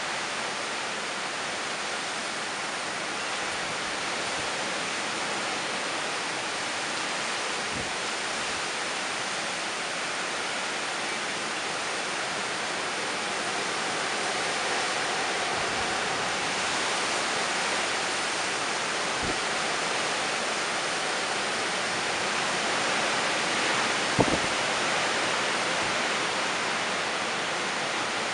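Hurricane wind and heavy rain rushing steadily, growing a little louder in the second half. A brief thump about 24 seconds in.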